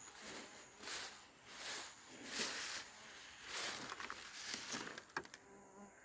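Footsteps swishing through tall grass, about one step every three quarters of a second, with a few sharp clicks near the end.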